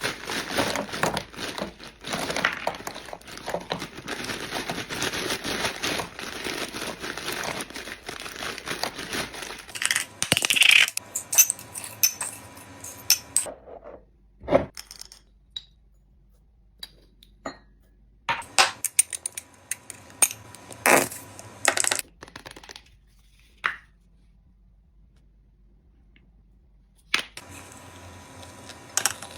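Drink-making handling sounds: about ten seconds of dense crinkling, crunching noise, then scattered clinks and taps of glassware and utensils with quiet gaps between.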